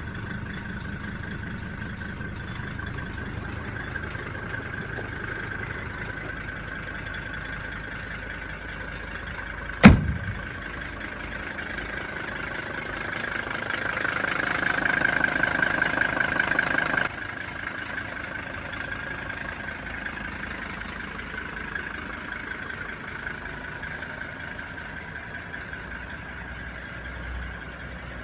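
Mercedes-Benz W123 engine idling just after starting, with a steady high whine over the running. A single sharp click about ten seconds in; a few seconds later the engine grows louder, then drops back abruptly to idle.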